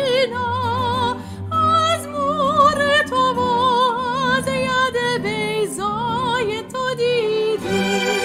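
A song: a high solo voice sings a slow melody with wide, even vibrato over a sustained instrumental accompaniment.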